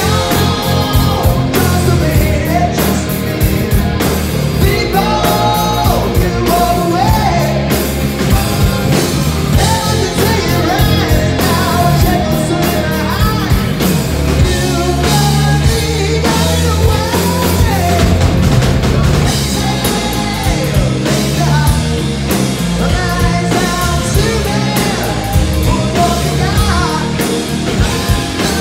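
Rock band playing live: electric guitar, bass guitar and drum kit, with a voice singing over them.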